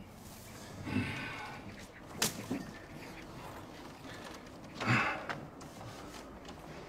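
A person's breathy gasps, once about a second in and again more strongly just before five seconds, with a single sharp click between them.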